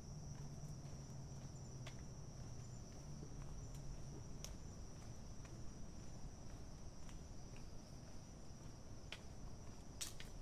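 Night insects trilling in one steady, high-pitched tone, with a few faint sharp clicks scattered through it, the loudest near the end.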